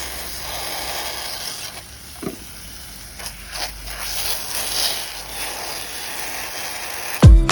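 A steady hissing noise with a few faint soft knocks through it. Music with a beat comes in loudly near the end.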